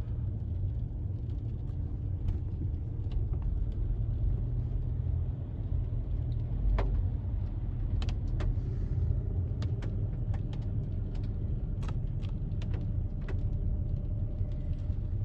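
Steady low rumble of a car's road and engine noise heard from inside the moving car, with a few light clicks and taps scattered through the second half.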